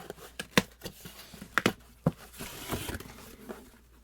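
Cardboard box being opened by hand: a few sharp snaps and knocks of the cardboard, then a ripping sound about two and a half seconds in as the box or its tape is torn open.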